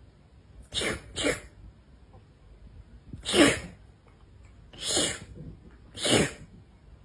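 Five short sneezes: two in quick succession about a second in, then three more spaced a second or more apart.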